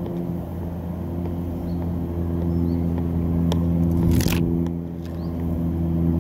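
A steady low mechanical hum runs throughout. Over it, a few sharp taps of a soccer ball being juggled on the foot come from about halfway in. There is one brief loud hiss just after that.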